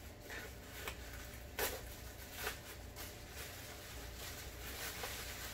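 Plastic bag and bubble wrap crinkling and rustling as a boxed vinyl figure is unwrapped by hand, with a few short crackles in the first three seconds, the loudest about a second and a half in.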